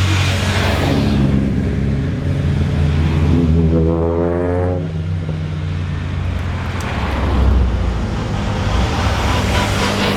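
Hill-climb racing car engine running loud, with a rising revving note about three to five seconds in.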